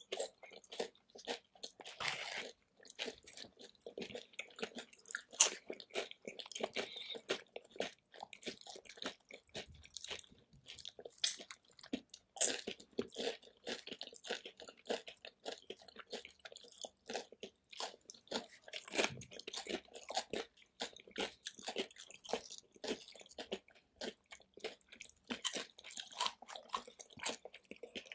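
Close-miked crunching and chewing of tortilla chips from a dish of loaded nachos: a steady, uneven run of crisp crackles and bites.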